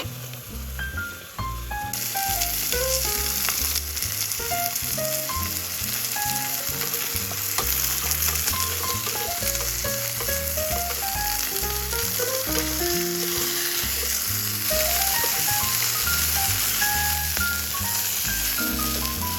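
Meat sizzling as it fries in a pan, a dense crackling hiss that starts about two seconds in, under light plucked background music.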